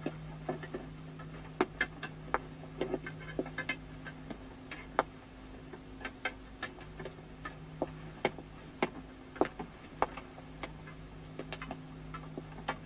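Irregular clinks and clicks of dishes and utensils on a metal tray during a meal, some with a short ring, over a steady low hum.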